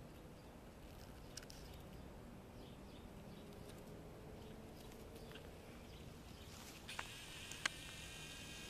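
Faint outdoor background; about seven seconds in, a steady high-pitched insect drone of several close tones sets in, with two sharp clicks near the end.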